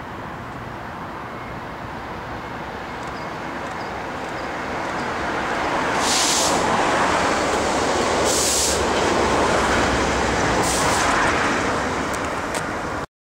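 Class 67 diesel locomotive hauling a railhead treatment train, approaching and passing beneath. The engine and wheel noise build up to a steady loud rumble, with three short hissing bursts about two to three seconds apart, and the sound cuts off suddenly near the end.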